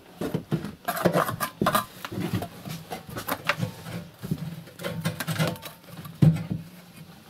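Gloved hands pressing and smearing wet clay around a brick set back into a stove's flue opening: irregular scrapes, rubs and small knocks of brick and clay, with one sharper knock about six seconds in.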